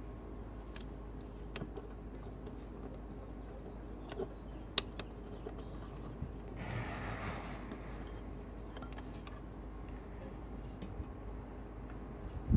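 Light clicks and a short rustle as fingers search around a lapidary flat-lap machine's splash pan and diamond polishing pad for a dropped piece of shell. A faint, steady hum runs underneath.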